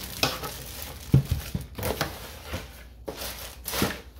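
Plastic packaging bag crinkling and rustling in irregular bursts as a steam iron is handled out of its cardboard box, with a sharp knock a little over a second in.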